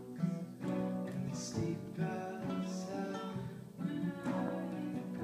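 Acoustic guitars strumming chords in a folk song's instrumental passage, with a cello underneath.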